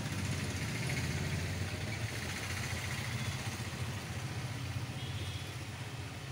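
A motor vehicle engine running steadily, a low rumble that eases off slightly toward the end.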